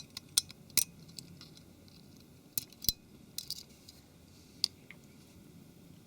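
Small, sharp irregular clicks and scrapes of a tool working tiny snap-on antenna cable connectors off a mobile phone's circuit board.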